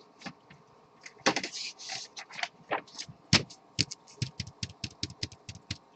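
Typing on a computer keyboard: a run of irregular key clicks, several a second, starting about a second in, as team assignments are entered.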